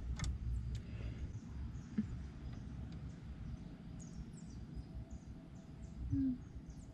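Faint outdoor ambience: a steady low rumble with a few faint, short bird chirps and a single click about two seconds in.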